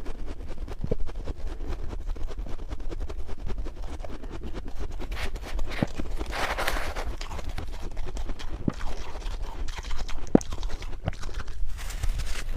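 Close-miked chewing and crunching of powdery freezer frost, a run of small crackles and clicks. About six seconds in, a metal spoon scrapes and scoops through the frost.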